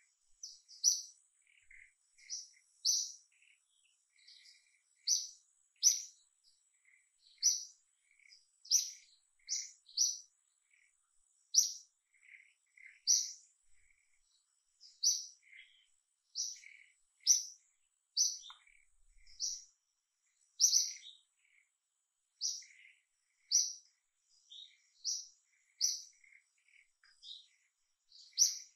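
A bird calling repeatedly in the trees: short, high chirps about once a second, with softer, lower notes between them.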